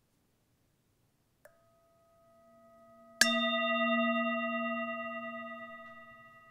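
Singing bowl played with a mallet: a light tap about a second and a half in, a low tone swelling, then a firm strike a little past three seconds in. The bowl rings with several steady overtones that slowly die away.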